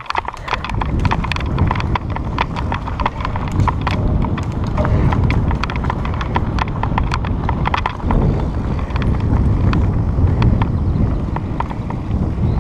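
Wind rumbling on the microphone of a camera riding on a moving mountain bike, with a dense run of irregular clicks and rattles from the bike shaking over a bumpy dirt trail.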